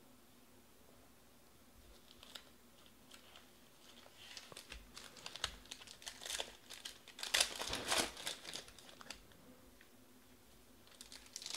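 Foil wrapper of a Panini Prizm baseball card pack crinkling and tearing as it is ripped open by hand, loudest about seven to eight seconds in. It starts after a couple of quiet seconds with scattered light clicks, and picks up again near the end.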